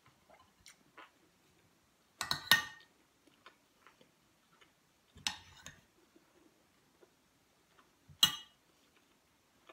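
Metal cutlery clinking and scraping against a plate and a serving bowl during a meal: a few sharp clinks, loudest around two and a half seconds in and again about eight seconds in, with softer taps between.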